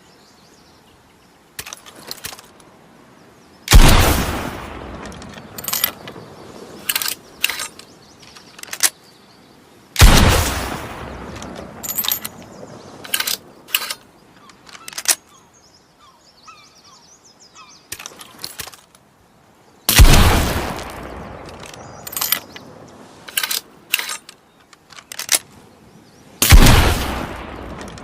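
Blunderbuss shotgun fired four times, several seconds apart, each loud blast trailing off in a long echoing tail. Between the shots come short metallic clicks and rattles of the gun being handled.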